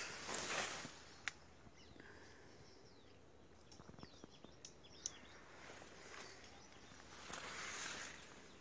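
Footsteps and rustling of plants at the start and again near the end, with a few faint bird chirps in between and one sharp click a little over a second in.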